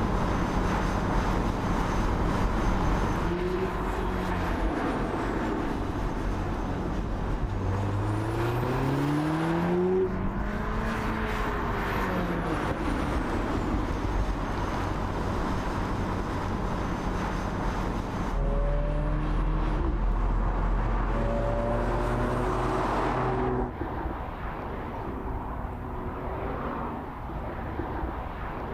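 Audi S3 Cabriolet's turbocharged four-cylinder engine accelerating on the road, its pitch rising and stepping up through the gears several times. It falls quieter near the end.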